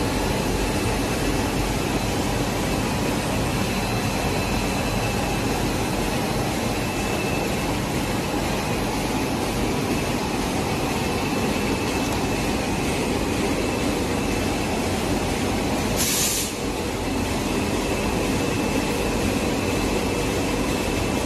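Plastic zipper production machinery running steadily: a constant mechanical drone with faint steady high whines. A brief hiss about 16 seconds in.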